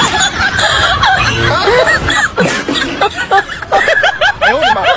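Overlapping snickering and chuckling laughter from many voices, like a comedy laugh track.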